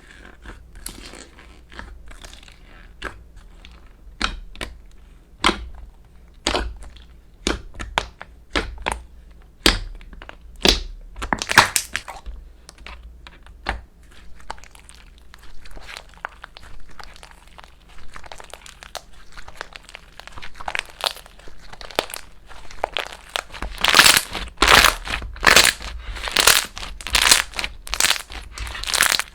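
Slime being squeezed and pressed by hand, making irregular sticky crackles and pops. They come faster and louder over the last few seconds.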